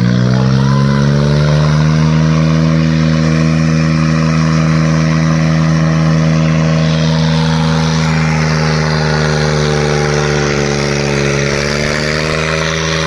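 Tractor diesel engine revved up to full throttle and held there, straining under load in a tug-of-war pull. The pitch rises quickly at the start, then holds nearly steady, with a slight dip near the end.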